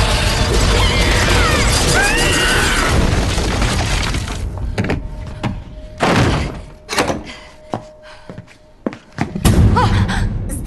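Film soundtrack of music and effects: a loud, dense stretch with high gliding screeches, then a quieter stretch broken by several sharp thuds and knocks.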